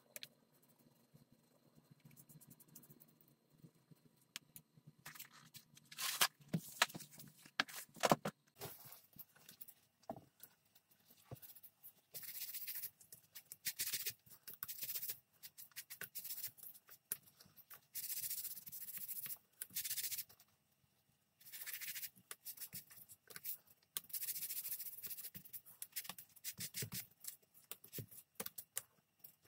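Cloth rubbed against freshly black-dyed leather straps, wiping off excess dye, in repeated strokes of a second or two each, with a few sharper scrapes and rustles around six to eight seconds in.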